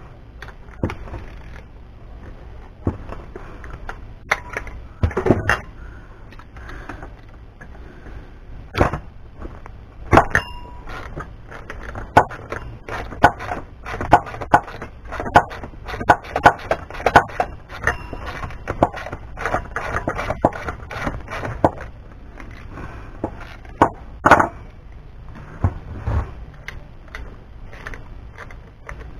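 Irregular clicks, knocks and light scrapes of hand tools and small metal scrap being handled and taken apart on a workbench, busiest in the middle, with one louder knock near the end.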